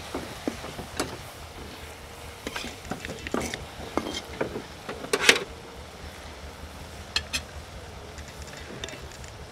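Egg snacks deep-frying in oil in a blackened wok, sizzling steadily, while a metal spatula turns them and scrapes and taps against the pan several times; the loudest clank comes about five seconds in.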